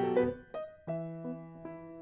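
Piano playing slow chords that ring on and fade, with a new chord struck about a second in and held.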